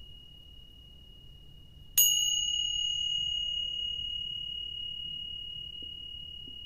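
Tingsha bells struck together once about two seconds in, a sharp high clash that rings on with a long, slowly fading high-pitched tone. Before the strike, the ring of an earlier strike is still dying away.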